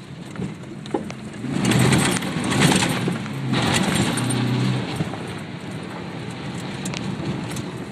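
1993 Ford Ranger's 3.0-litre Vulcan V6 pulling under acceleration, heard from inside the cab, with tyre noise on a dirt track. It is loudest for about three seconds starting a second and a half in, then eases to a steadier run.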